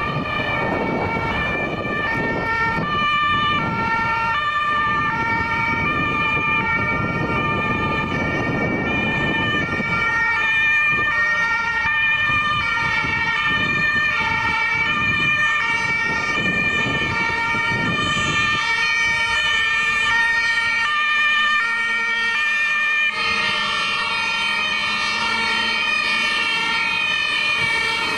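Several German two-tone emergency-vehicle sirens (Martinshorn) from fire and rescue vehicles sound at once, each stepping between a high and a low note, out of step with one another. A low vehicle rumble lies underneath for the first two-thirds, and the sound shifts abruptly near the end.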